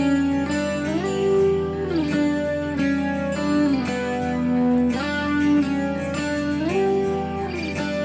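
Background music: a melody of held notes that slide up and down in pitch between steps.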